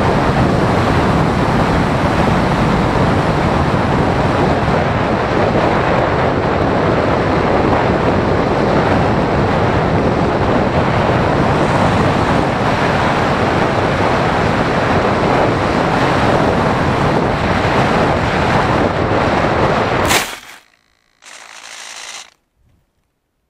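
Airflow rushing over the microphone of a camera mounted on a Phoenix 1600 RC glider in flight: a steady, loud noise with no motor tone. About 20 seconds in, the glider lands in long grass with a short knock and the rushing stops, followed by one more brief burst of noise about a second later.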